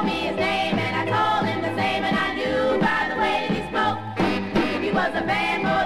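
A late-1950s rock and roll single playing from a 45 rpm vinyl record: a female vocal group singing in harmony over an orchestra backing.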